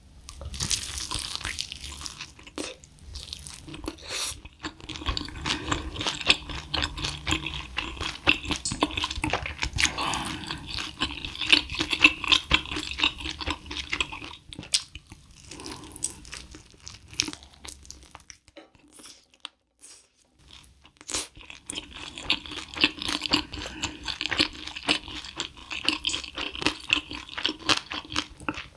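Close-up crunching and chewing of crispy Kyochon Red Combo spicy fried chicken dipped in cheese sauce, the crisp skin crackling with each bite. The chewing stops for a few seconds about two-thirds of the way through, then the crunching starts again.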